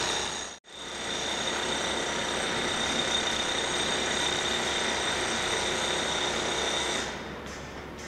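Construction machinery running: a steady, high-pitched mechanical whine over a rushing hiss. It breaks off for an instant just under a second in and stops abruptly about seven seconds in.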